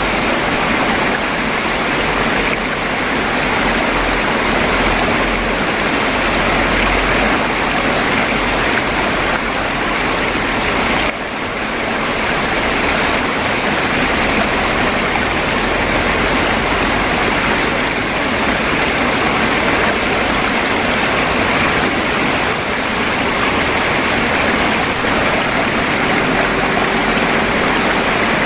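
Water flowing and babbling steadily over stones in a shallow stream.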